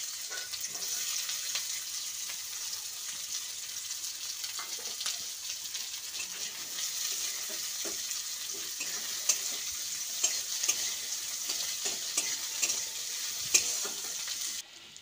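Sliced onions sizzling in hot refined oil in a metal kadai, with a flat metal spatula scraping and clicking against the pan as they are stirred. The sizzle stops suddenly near the end.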